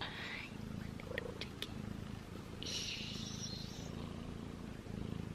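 A kitten purring close to the microphone: a low rumble that swells and eases about once a second with its breathing, with a brief rustle about three seconds in and a few light clicks.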